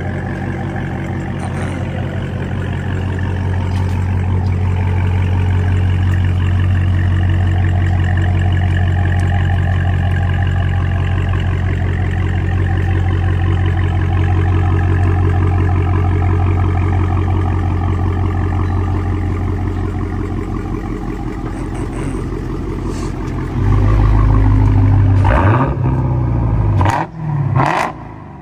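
Supercharged 6.2-litre HEMI V8 of a Hellcat with its mufflers deleted, the exhaust running at a steady speed with a deep, loud drone. About 24 seconds in it gets louder, then revs up and drops back two or three times in quick succession.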